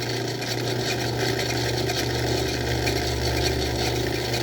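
Craftsman 109 bench lathe running steadily under power, its motor and drive humming while a drill in the tailstock cuts into the spinning workpiece.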